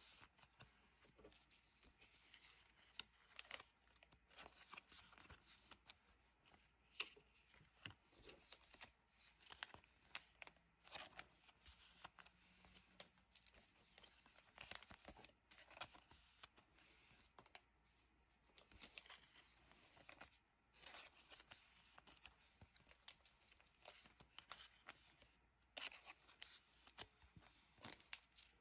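Faint rustling and crinkling of thin plastic penny sleeves as they are peeled off a stack and slid over trading cards. It comes as many short, soft crinkles and clicks in no fixed rhythm.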